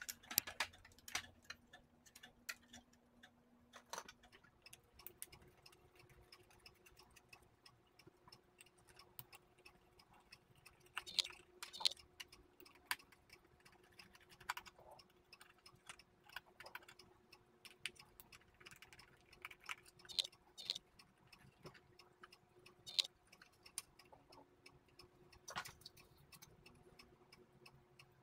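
Irregular small clicks and taps of a plastic electric blanket controller housing, screws and a screwdriver being handled as the unit is taken apart.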